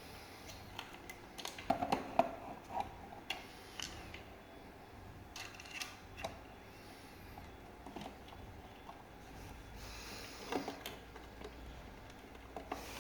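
Scattered light clicks and knocks of parts and tools being handled while a rear fender is taken apart, clustered about two seconds in and again near the end.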